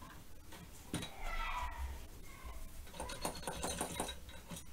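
Faint scrubbing and light clicking of small tools on the phone's logic board as the connector pads are cleaned with solvent, with a patter of small ticks near the end.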